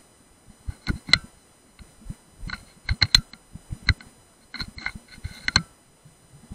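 Irregular sharp clicks and knocks in three short clusters, each with the same brief metallic ring: handling noise on the air rifle and its scope as the rifle is shifted and re-aimed.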